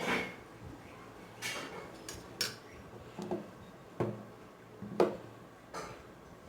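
Dishes and utensils clinking and knocking, about eight separate sharp clicks, with the loudest about five seconds in.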